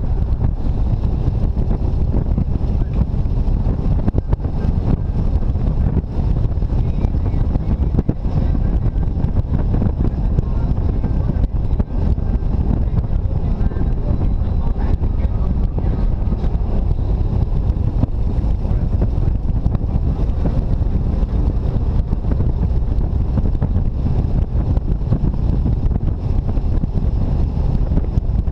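Steady low rumble of wind buffeting the microphone of a hood-mounted GoPro on a Jeep Wrangler driving along a paved road.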